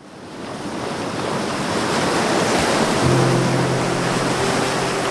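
Soundtrack music: a rushing, surf-like wash fades in from silence and swells, and sustained low notes join about three seconds in.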